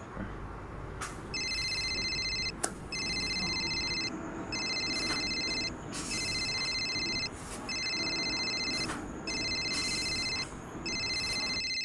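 Phone ringing with an electronic trilling ringtone: about seven rings, each just over a second long with short gaps between. It stops near the end as the call is picked up.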